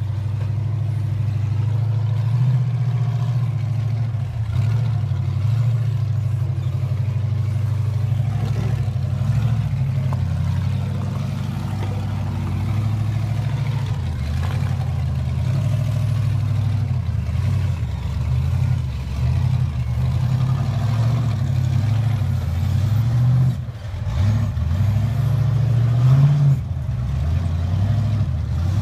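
Modified Jeep YJ rock racer's engine running and revving in uneven surges as it crawls over boulders, dipping briefly then rising to a louder rev near the end.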